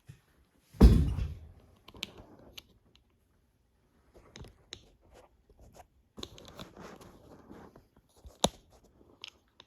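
Handling noise from the camera being moved and set in place: a loud thump about a second in, then scattered rustling and light clicks, with one sharp click near the end.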